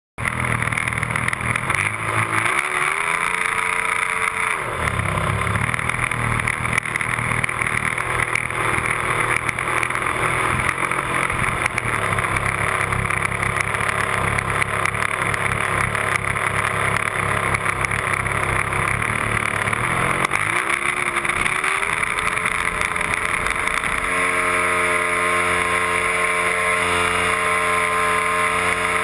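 Radio-controlled Piper Cub model airplane's engine and propeller running close to the microphone, briefly revved up a few seconds in and again about twenty seconds in. Near the end it is throttled up and held steady at a higher pitch as the model begins its run across the snow.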